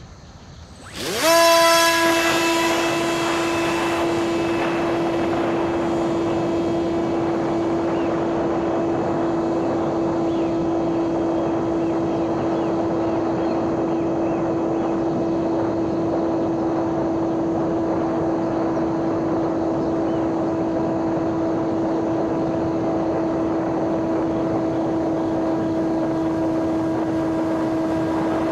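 Electric motor and 5-inch propeller of a homemade RC plane throttling up at takeoff: a quick rising whine about a second in, then a steady high-pitched whine with wind rush, heard from the camera mounted on the plane.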